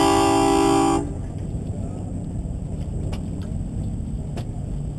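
A boat's horn sounding one steady blast of several pitches at once, cutting off about a second in. After it a steady low rumble, with a few faint clicks.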